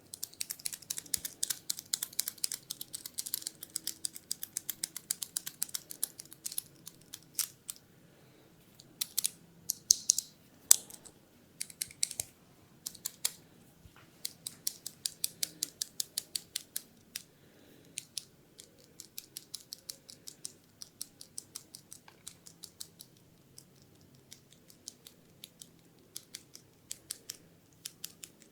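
Runs of short, sharp, crisp clicks close to the microphone, several a second, with brief pauses between runs; the loudest come about ten seconds in.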